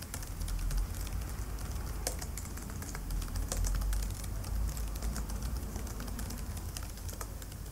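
Typing on a computer keyboard: a quick, irregular run of key clicks as a file path is typed, over a low steady hum.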